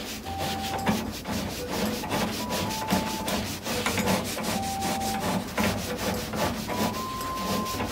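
A caster's threaded stem being turned by hand into the foot of an industrial sewing machine stand: a continuous run of small scrapes, rubs and clicks as the metal thread and caster turn against the leg's plastic cap.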